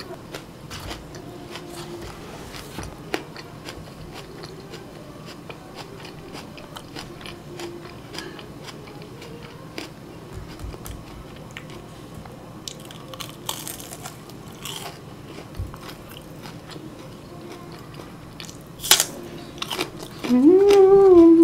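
Close-miked chewing of crispy fried chicken and raw green onion: a steady run of small wet clicks and crunches, with a sharp, loud crunch near the end as a raw green onion stalk is bitten. A voice starts just before the end.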